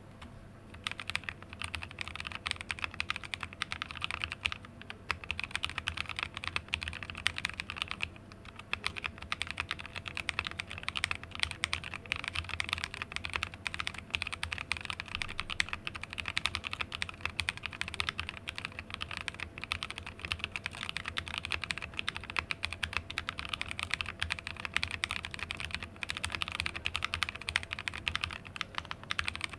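Continuous fast typing on a mechanical keyboard with lubed NovelKey Cream linear switches, on a plateless BM60 hotswap PCB in an acrylic case. Each key bottoms out with a clack, and there is a brief lull about eight seconds in.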